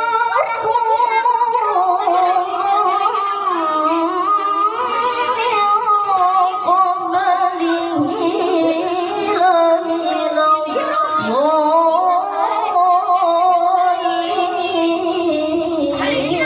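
A boy's voice reciting the Quran in the melodic tilawah style through a microphone and PA, long held phrases with wavering, ornamented pitch.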